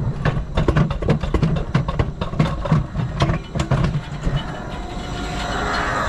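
Alpine coaster cart running on its steel rail: a fast, uneven clatter of wheel clicks, giving way after about four seconds to a steadier whirring rush.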